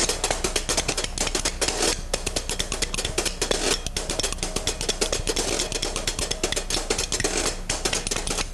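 Washboard and a pair of spoons played together in a fast, busy rhythm, a dense run of metallic clicks, scrapes and clacks.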